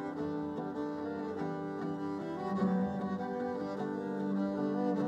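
Background string quartet music: violin and cello playing slow, sustained notes that shift every second or so.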